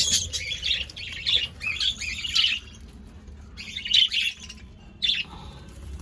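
Budgerigar chick squawking in about five short, harsh bursts with gaps between them, the distress calls of a young budgie being caught by hand.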